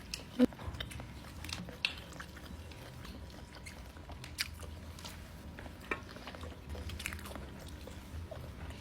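A person eating, with quiet chewing and scattered small clicks.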